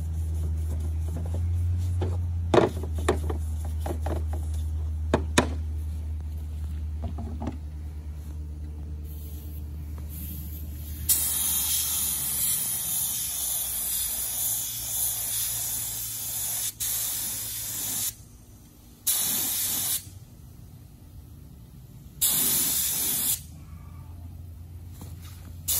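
A low steady hum with a few sharp knocks in the first half, then an air spray gun with a top-mounted paint cup hissing as it sprays a cabinet door: one long spray of about seven seconds, then several shorter bursts of a second or so.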